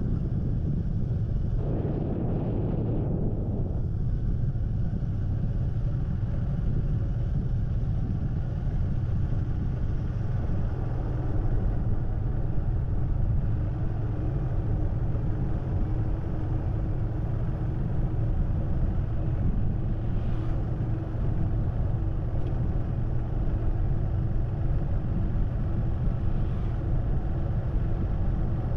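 Steady low rumble of a moving road vehicle, with wind noise on the microphone. A steady engine hum comes through from about halfway on.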